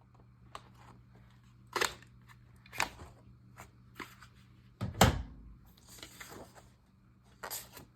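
Paper sheets and a planner being handled: a few short rustles and clicks, with a louder thump about five seconds in.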